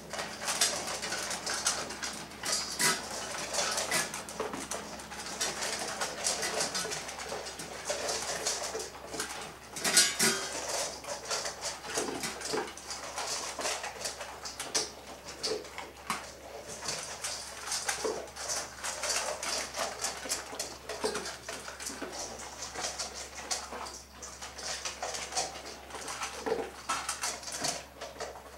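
Bullmastiffs eating from stainless steel bowls in raised feeder stands: steady irregular chewing and crunching, with the metal bowls clinking and knocking in their stands.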